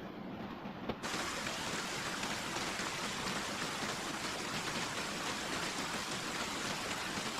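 Steady water noise, a dense even hiss, that starts abruptly about a second in after a quieter, duller stretch.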